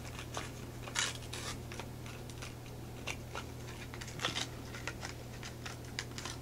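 Scattered light clicks and taps of small objects being handled, the sharpest about a second in, over a steady low hum.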